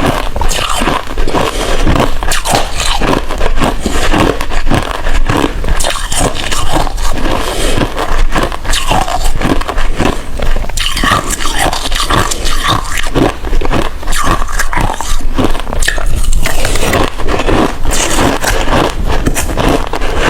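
Hard ice being bitten and chewed close to the microphone: loud, dense, irregular crunching with no let-up.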